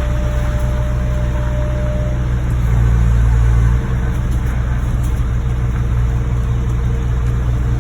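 Vehicle engine running with a steady low drone, which rises in level about three seconds in and drops back suddenly about a second later.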